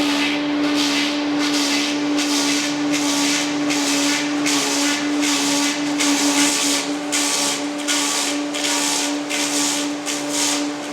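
Log lathe milling a spinning log down from 10 inches to 8 inches in diameter. A steady motor hum runs under a hissing cutting noise that swells and fades about twice a second.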